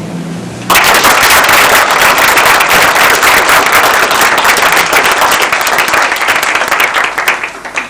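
An audience clapping and applauding, starting suddenly about a second in and thinning to a few scattered claps near the end.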